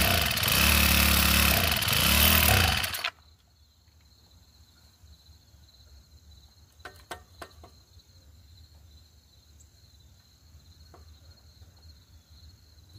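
Craftsman 25cc four-stroke mini cultivator engine running, its speed rising and falling, then cutting off suddenly about three seconds in. After it stops, crickets chirp steadily, with a few faint clicks.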